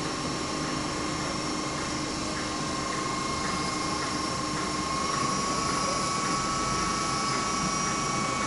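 Southern Class 313 electric multiple unit moving through the station, a steady electric whine that rises slightly about halfway through, over a haze of running noise and light regular clicks about twice a second.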